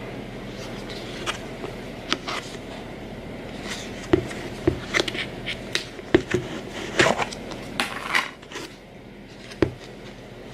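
Hands squishing and poking homemade fluffy slime for ASMR: irregular wet clicks and small pops, with a cluster of louder pops from about four to eight seconds in.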